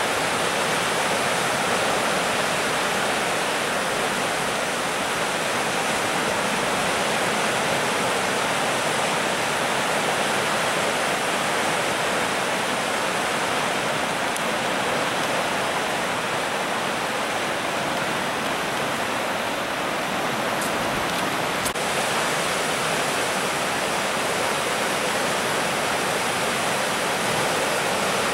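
Swollen floodwater rushing and churning through whitewater rapids, a steady loud rushing noise that stays even throughout.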